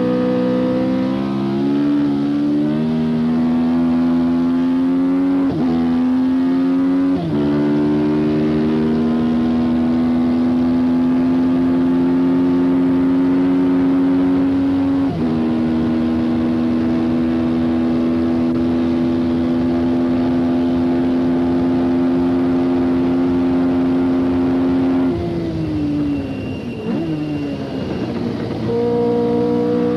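Tyrrell Formula 1 car's Ford-Cosworth DFV V8 at full throttle, heard onboard, changing up through the gears with short dips in pitch about 2, 5½, 7 and 15 seconds in. It then holds high, steady revs. Near the end the revs fall and waver as the driver lifts and shifts down, then pick up again.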